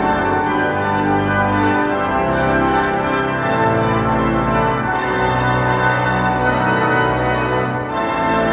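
Walcker pipe organ playing held chords over a deep pedal bass, the harmony moving to a new chord every few seconds.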